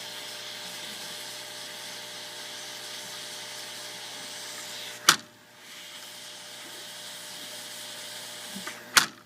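Hot air rework gun blowing steadily with a faint motor hum while it melts leftover solder out of a laptop DC jack's through-holes. A sharp click about five seconds in is followed by a brief drop in the blowing, and another click comes near the end.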